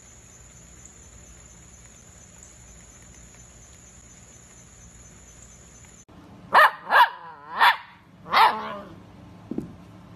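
A dachshund puppy barking four times in quick succession, short, high yaps starting about six seconds in. Before the barks, a steady high insect drone.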